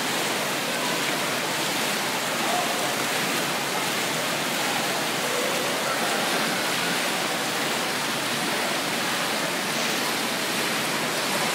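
Steady rush and splash of water from an indoor pool's fountain jets and spray-play features, with faint voices of swimmers in the background.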